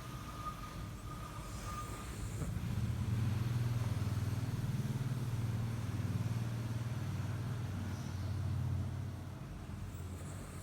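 A person snoring: one long, low, fluttering snore that starts about two seconds in, lasts several seconds and fades near the end.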